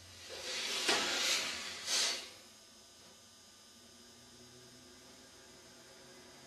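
A forceful breath blown out through the nose in about three strong pushes over about two seconds, the exhalation of nine-round yogic breathing done with one nostril held closed.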